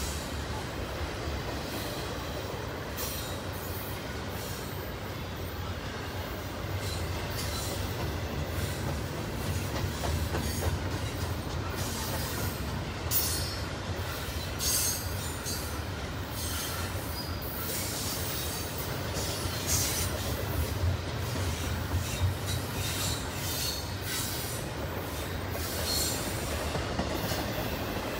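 Double-stack intermodal container cars rolling past on the main line, a steady low rumble of wheels on rail. Short spells of high-pitched wheel squeal come through now and then.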